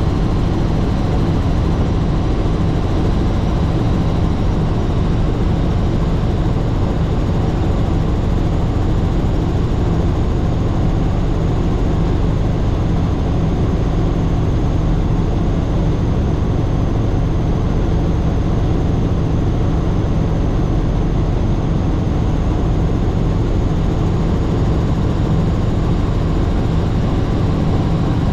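Helicopter in steady flight: engine and rotor running at a constant pitch, a loud unbroken low hum.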